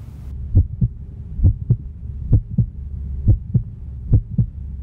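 A heartbeat sound effect: paired low thumps, lub-dub, repeating evenly at about one beat a second over a low steady hum.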